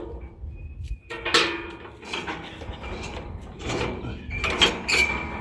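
Metal tools and parts clinking and rattling as they are handled, with sharp clicks and knocks starting about a second in and a short metallic ring near the end.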